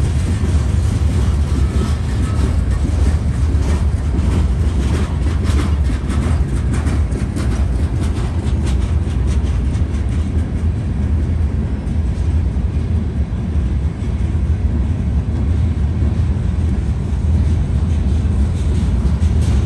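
Freight train of covered hopper cars rolling past: a steady low rumble with wheels clicking over the rail joints, the clicks densest in the first half.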